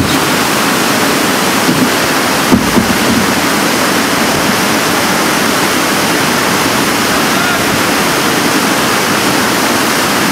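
Whitewater river rapids rushing steadily, a loud even roar of water, with two brief knocks about two and a half seconds in.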